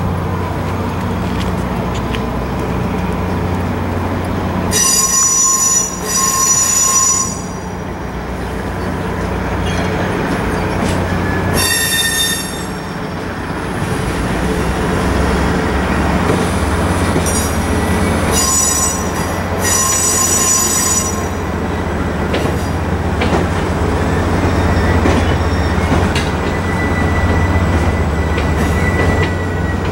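Caltrain passenger train rolling slowly past, its wheels squealing in high-pitched bursts about five seconds in, again near twelve seconds, and longest from about seventeen to twenty-one seconds. Under it runs a steady low diesel locomotive rumble.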